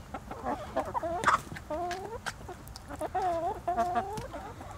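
A flock of chickens clucking, with several short calls that bend up and down in pitch, some overlapping one another, and a few sharp clicks in between.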